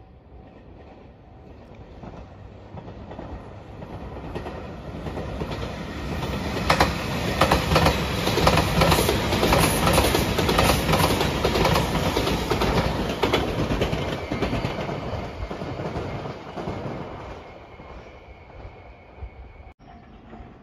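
JR Shikoku 8600 series electric limited express train passing at speed. It grows louder as it approaches, with a rapid clatter of wheels over rail joints at its loudest in the middle, then fades as it goes away.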